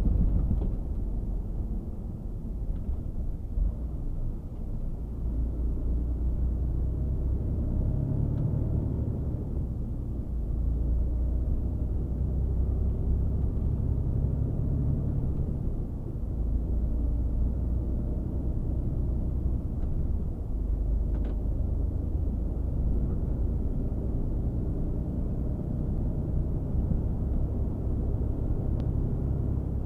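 Steady low engine and road rumble heard inside the cab of a Mercedes-Benz Actros 1848 truck cruising on a highway. In the second half the truck speeds up from about 46 to 72 km/h.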